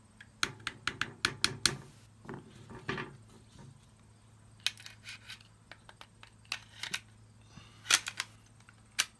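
Metal parts of a Glock 19 pistol clicking and clacking as it is handled during reassembly: a series of short, sharp clicks in clusters, the loudest a little after the start and near the end.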